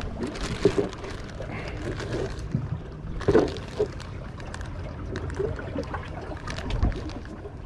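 Clear plastic bag crinkling and rustling as hands dig through thawed shrimp bait, in a run of small crackles with a few sharper ones.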